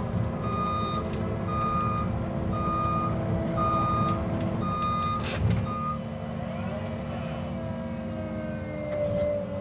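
Cat 306 excavator running, its travel alarm beeping about once a second until about six seconds in, with a sharp knock about five seconds in.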